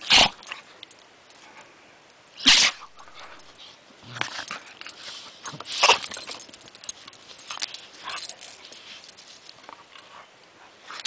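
Two dogs play-fighting, mouthing each other: short breathy huffs and dog noises, three louder bursts about a second in, two and a half seconds in and six seconds in, with fainter ones between.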